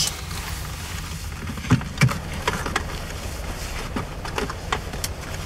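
A car's engine idling inside the stopped cabin, a low steady rumble, with scattered rustles and small knocks as passengers move in the back seat.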